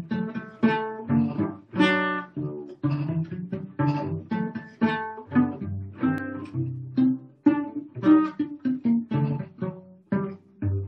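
Solo cello playing a gavotte, bowed in short, separate notes, several a second.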